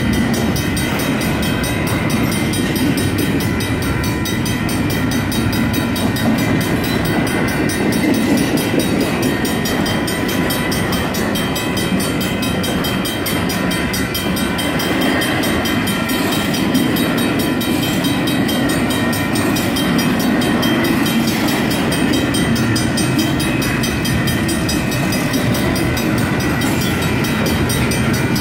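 Double-stack intermodal well cars of a freight train rolling steadily past, a continuous rumble of steel wheels on rail. The grade-crossing bells keep ringing over it without a break.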